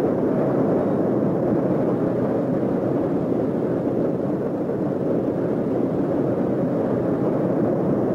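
Jet aircraft engines, a loud, steady rushing noise with no distinct tone.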